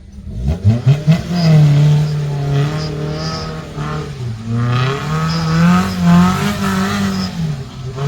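Off-road vehicle engine revving hard, its pitch jumping up sharply about half a second in, then rising and falling as the throttle is worked.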